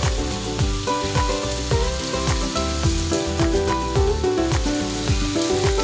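Background music with a steady beat and melody, over chicken thigh pieces sizzling in hot oil in a pan.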